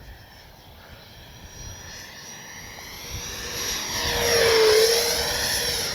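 Freewing BAE Hawk T1 RC jet's 70 mm electric ducted fan whining as the model flies past, growing steadily louder to a peak about four and a half seconds in, then easing slightly.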